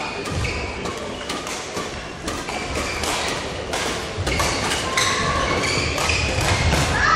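Badminton rally: sharp, repeated cracks of rackets hitting the shuttlecock, mixed with squeaks of court shoes on the hall floor and the thuds of players' footfalls. One long squeak falls in pitch near the end.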